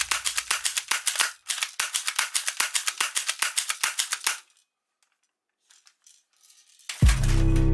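A rapid, uneven clicking rattle, about ten clicks a second, which stops about four seconds in. Near silence with a few faint clicks follows, then music with a heavy bass starts near the end.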